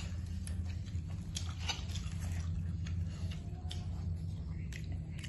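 Small cooked clam shells clicking and tapping as they are handled and picked open by hand, with some chewing, over a steady low hum.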